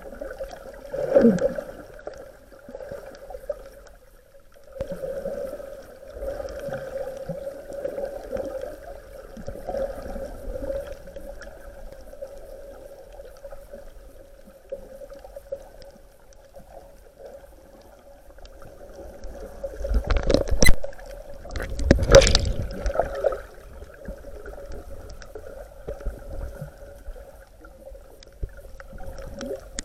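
Water sloshing and gurgling around swimmers over a steady hum, with a burst of louder splashing about two-thirds of the way in.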